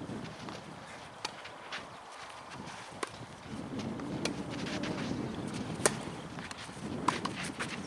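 Tennis ball being hit back and forth during a point on a clay court: a handful of sharp pops of racket strikes and bounces, one every second or so, the loudest about three-quarters of the way through, over the scuffing of players' feet on the clay.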